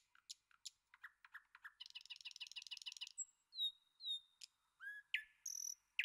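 Songbirds singing: short high chirps, a fast trill of about seven notes a second around two seconds in, then clear whistled notes and more chirps.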